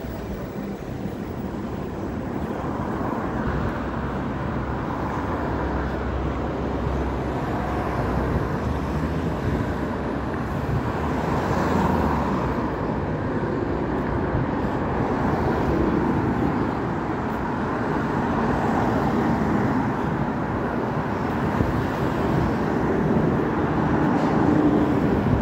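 Steady road traffic noise: vehicle engines and tyres rumbling past in slow swells.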